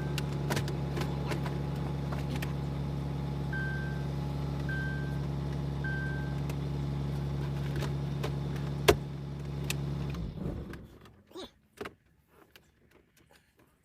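Pickup truck engine idling steadily, with a short high chime beeping a few times, then a sharp click about nine seconds in and the engine shutting off a second later. Faint small clicks follow.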